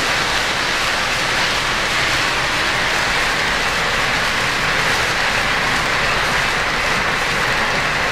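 O-gauge model freight train running on three-rail track, its cars rolling past close by with a steady rumble and hiss of metal wheels on the rails.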